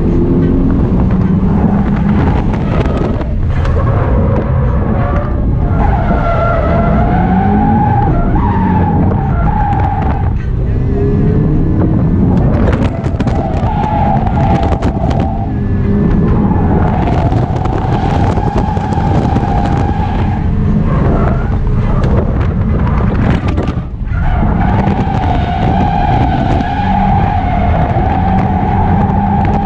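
Subaru BRZ's flat-four engine running hard, heard from inside the cabin, while the tyres squeal in several long drift slides with short breaks between them.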